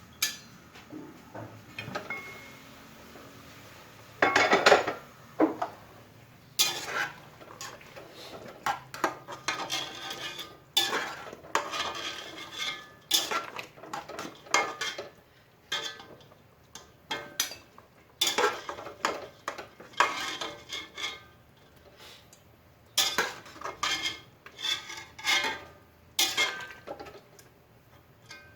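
Metal kitchen utensils and cookware clattering, clinking and scraping in irregular bursts, with the loudest knock about four and a half seconds in.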